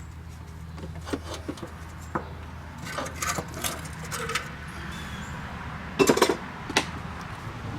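Loose steel tractor brake and axle parts being handled: scattered light clinks and knocks, with a short cluster of louder metal knocks about six seconds in and one more just before the end.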